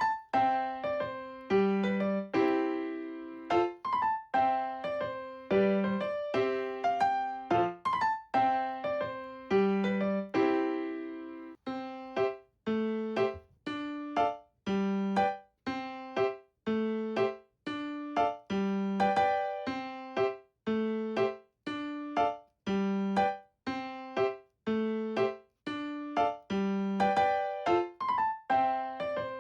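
Background music: a light, bouncy piano tune played in short notes with a steady beat.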